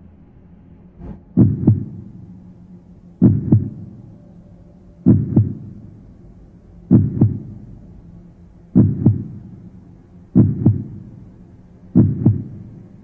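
Heartbeat sound effect: seven paired lub-dub thumps, roughly every two seconds, beginning about a second in and coming a little quicker near the end, over a low steady hum.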